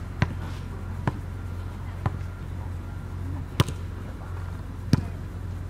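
Volleyball impacts: five sharp smacks about a second apart, the fourth the loudest, over a steady low hum.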